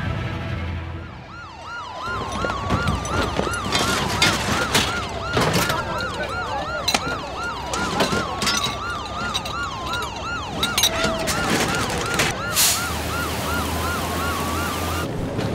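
Several emergency-vehicle sirens sounding together: one in a fast yelp of about three sweeps a second, others in slower rising and falling wails, with sharp knocks scattered through. They come in about two seconds in and stop just before the end.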